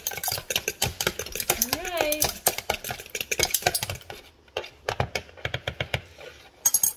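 A spoon and a fork whisking raw eggs in a mixing bowl: rapid, irregular clinking and scraping against the bowl. The clicks thin out after about four seconds, with a few louder taps near the end.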